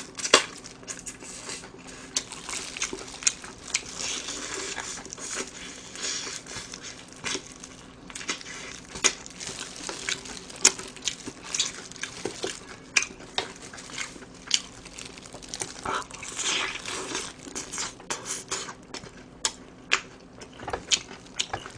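Close-miked eating of crispy fried chicken: crackling of the crunchy batter as it is bitten, chewed and pulled apart, a steady run of sharp crackles and clicks.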